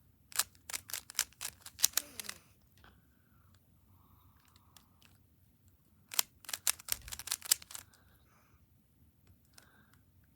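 Rubik's cube being turned by hand: two runs of quick plastic clicks as the layers are twisted, one at the start and another about six seconds in.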